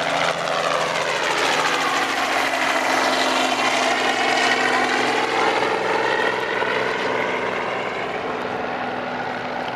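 Robinson R44 helicopter flying low overhead, its piston engine and rotor making a steady drone that grows louder as it passes over and then slowly fades as it moves away.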